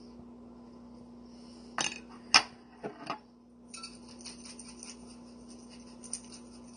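Kitchen utensils and cookware clinking: a few sharp clinks, the loudest about two and a half seconds in, then a run of light, irregular rattling ticks, over a steady low hum.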